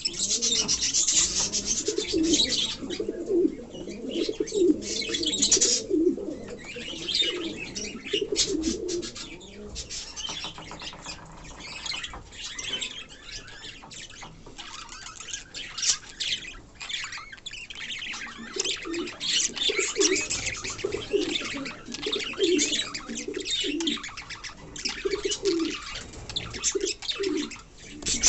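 Doves cooing over and over in low, pulsing calls, over a constant chatter of high chirps from small birds. The cooing stops for several seconds midway and then starts again.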